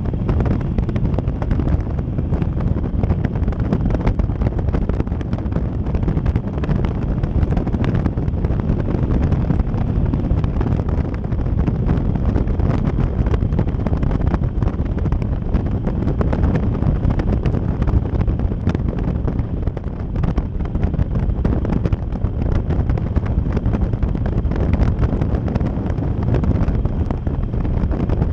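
Wind rushing over the microphone on a moving motorcycle, over a 2009 Harley-Davidson Sportster Custom's air-cooled V-twin engine running steadily at cruising speed.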